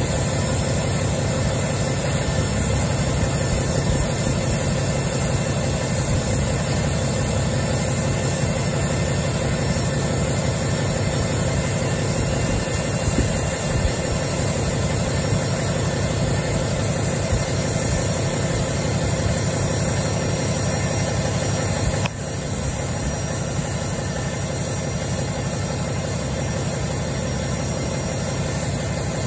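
6.7 Cummins turbocharged inline-six diesel idling steadily shortly after a cold start at 1°F, heard at the exhaust tip. It gets a little quieter about three quarters of the way through.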